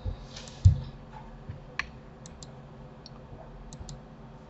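Computer mouse and keyboard clicks while selecting in a 3D modelling program: about eight scattered sharp clicks, with a soft low thump less than a second in.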